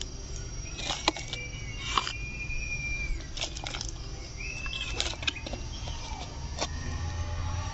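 Crackles and clicks of a thin plastic bottle and soil being handled as potting mix is pressed down by hand, with a bird whistling twice in the background.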